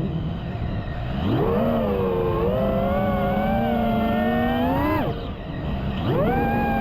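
Brushless motors of a GEPRC Mark 5 FPV quadcopter whining, their pitch rising and falling with the throttle: low at first, climbing about a second in and holding, dropping sharply near five seconds, then climbing back up near the end.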